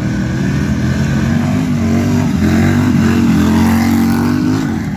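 Harley-Davidson Pan America 1250's V-twin engine running under varying throttle, its pitch rising and falling as the bike is ridden, easing off near the end.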